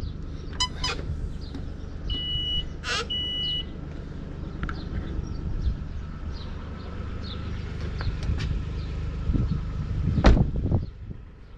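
Short electronic beeps, one less than a second in and a longer high tone about two to three and a half seconds in, over a steady low rumble. Near the end comes a thump as the SUV's rear side door is handled.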